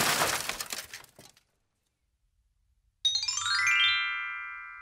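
Cartoon sound effects: the tail of a shattering crash fades out over the first second. After a pause, a quick rising run of chime notes settles about three seconds in into a ringing chord that slowly fades.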